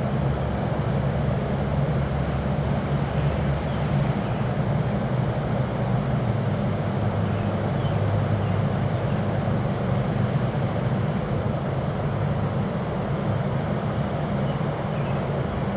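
Strong wind blowing steadily, heard as a constant low rumble with a hiss above it.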